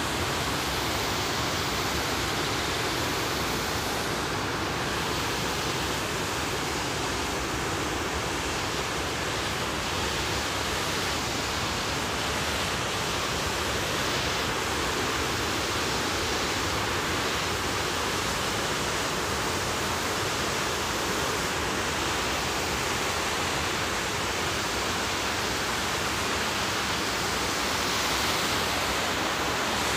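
River water pouring over a dam's overflow spillway and cascading onto rocks below: a steady, unbroken rush of falling water.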